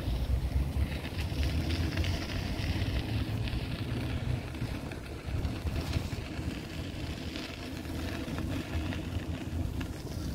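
Outdoor city ambience under a steady low rumble, with wind buffeting the microphone and a few faint clicks.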